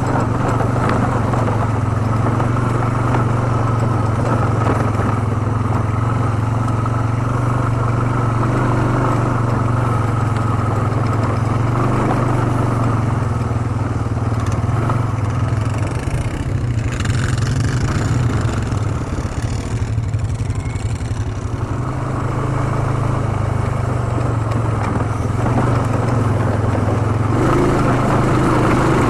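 ATV engine running steadily under way, easing off briefly about two-thirds through before picking up again.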